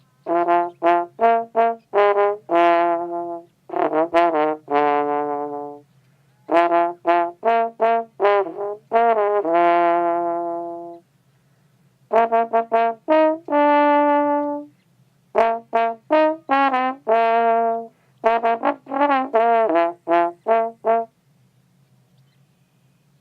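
A single brass-like instrument playing a melody in six phrases of quick notes, several ending on a held note, over a steady low hum; it stops a couple of seconds before the end.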